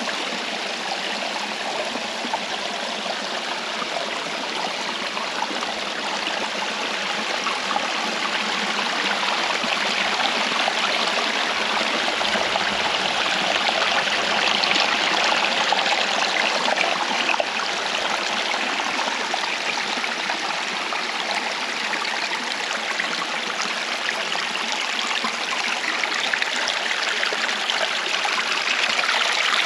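Steady rushing of flowing water, an even, unbroken hiss that swells a little in the middle.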